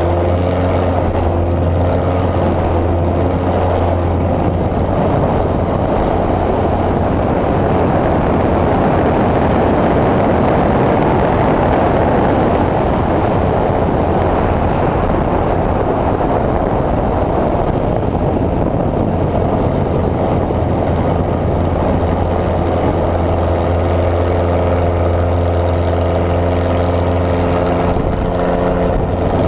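Pitts S1S aerobatic biplane's piston engine and propeller running steadily in flight. A rushing noise swells through the middle and covers the engine's pitched drone, which comes through clearly again in the last few seconds.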